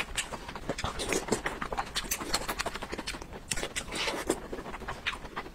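Close-miked wet chewing and lip smacking: a continuous stream of soft clicks and squelches as a mouthful of soft braised large intestine is chewed.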